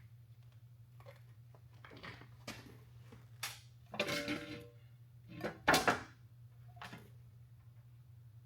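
Metal tools and transmission parts being handled: a few light clicks and knocks, then two louder metal clanks about four and six seconds in, the first with a brief ring.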